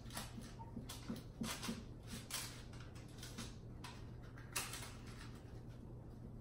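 Knife slicing through a baked apple strudel's thin, layered crust on parchment paper: faint, scattered crunches and crackles, with a sharper one about four and a half seconds in.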